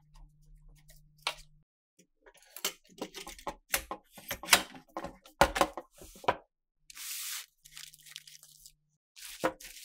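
Handling noise from restoration work: a dense run of sharp clicks and rustling, scraping sounds, then a short hiss around seven seconds in and one more sharp click near the end.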